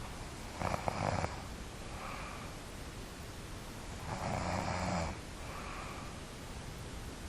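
A sleeping person snoring: two loud snores about three and a half seconds apart, each followed by a softer breath.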